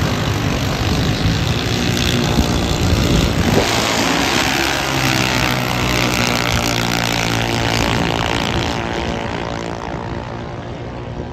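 Drag racing car engine at full throttle running down the strip. Its engine note becomes clear a few seconds in, then slowly falls in pitch and fades as the car pulls away.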